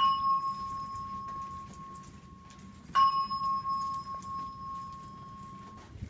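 Simplex 4100U fire alarm voice-system speaker sounding a chime tone twice, about three seconds apart, during a speaker test. Each is a clear ringing tone that starts sharply and fades slowly, and the second cuts off near the end.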